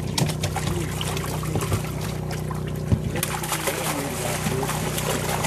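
Water splashing and sloshing as a long-handled landing net is swept through a fish-transport tank and scoops out carp, with one sharp knock about three seconds in. A steady motor hum runs underneath.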